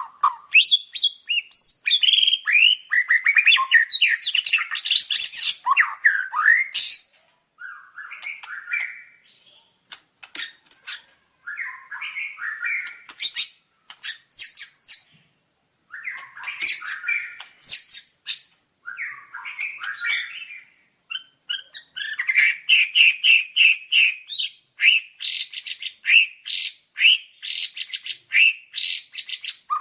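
White-rumped shama (murai batu) singing varied whistled and chattering phrases mixed with sharp clicking notes, broken by a few short pauses. In the second half comes a fast run of quickly repeated notes.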